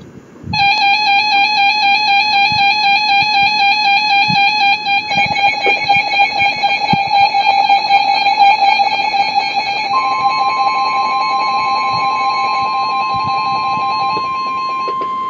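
Emergency Alert System attention signal: a loud, steady, slightly warbling alarm tone that starts about half a second in. Around five seconds in, more overlapping tones join it, and around ten seconds in a separate, steadier single tone starts, while the warbling tones fade out near the end.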